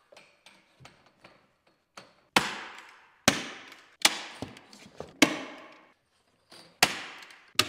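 A staple gun firing staples to fix metal external corner bead onto plasterboard: about six sharp shots at uneven intervals, each fading briefly in the bare room, with a few fainter clicks of handling before them.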